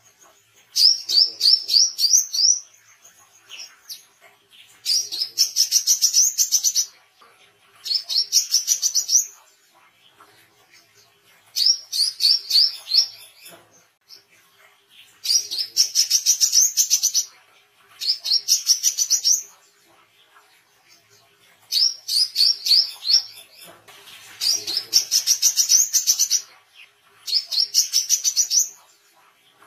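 Brown-throated sunbird singing: bursts of about two seconds of rapid, high chirps rising in pitch, repeated about nine times with short pauses between.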